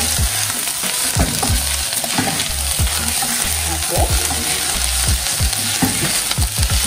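Sliced onions and garlic sizzling as they fry in a stainless steel pot, stirred with a wooden spoon: a steady sizzle with repeated scrapes and taps of the spoon against the pot.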